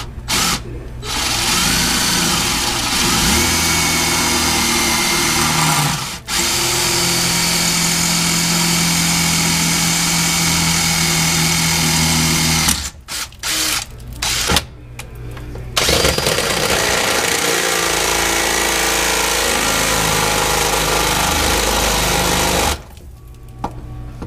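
Power drill pre-drilling a pilot hole in the van's metal frame. It runs steadily in three long pulls of several seconds, with brief stop-start bursts between the second and third, and stops shortly before the end.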